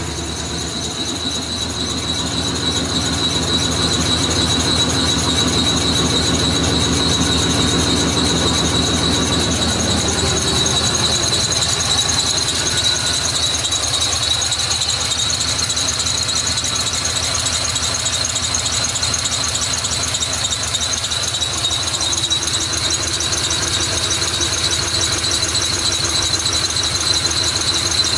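Pickup truck engine running with a steady high-pitched squeal over it. The engine note drops to a lower speed about ten seconds in, as if settling from fast idle, while the squeal holds steady.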